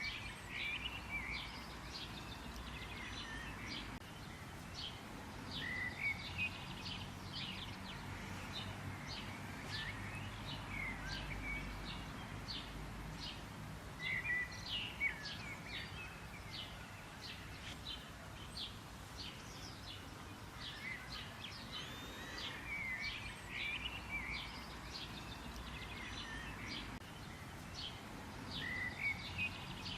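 Several songbirds chirping and calling, with many short, high notes and quick downward-sweeping whistles repeating throughout, over a steady low background rumble.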